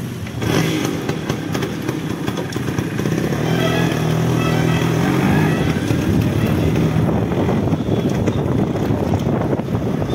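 Suzuki Samurai two-stroke motorcycle engine running as the bike pulls away and gets under way.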